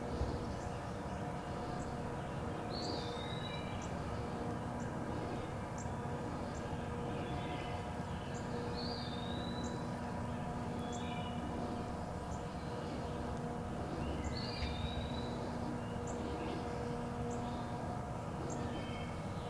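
Woodland songbirds singing: one bird repeats a short whistled phrase three times, about every five to six seconds, among fainter chirps, over a steady low hum.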